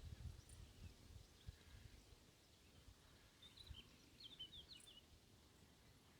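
Faint woodland quiet with a small bird twittering, a quick run of short high chirps about three and a half seconds in. A few soft low thumps come in the first two seconds.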